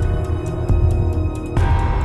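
Background music with a steady deep beat and held tones; about one and a half seconds in, a brighter layer with quick high ticks comes in.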